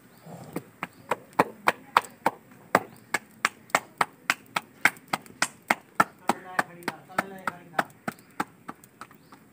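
Roti dough being slapped back and forth between the palms to flatten it by hand: a steady run of sharp pats, about three a second, that stops near the end.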